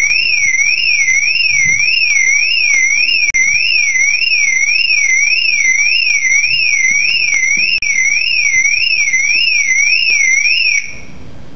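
Electronic alarm warbling: one loud, high tone sweeping up and down about twice a second, cutting off suddenly near the end.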